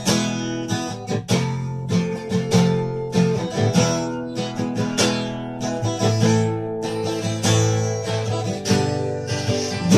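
Acoustic guitar strummed in a steady rhythm, its chords ringing on between strokes.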